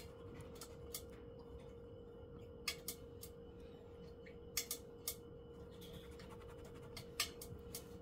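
Oil-painting brush dabbing and stroking on a stretched canvas: a scatter of faint, short, sharp taps at irregular intervals, over a steady faint hum.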